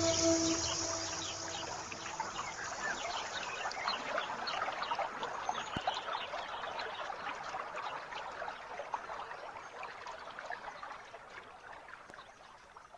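Trickling water: a dense patter of many tiny splashes that slowly grows quieter and fades out at the end. A music track ends about half a second in.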